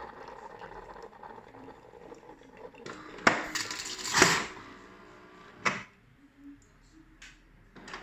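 Scattered clicks and knocks of something being handled, loudest about three and four seconds in, with another a little later, over a faint fading hum.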